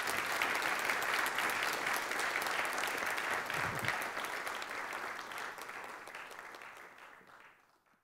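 Audience applauding, a dense patter of many hands clapping that fades away over the last few seconds.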